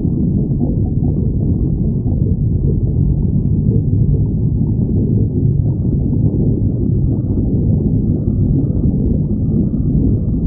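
Stomach growling: a loud, continuous low rumble with no pauses.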